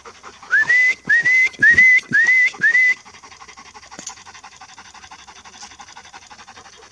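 A person whistling five short rising notes in quick succession, calling the dogs. A dog panting faintly follows.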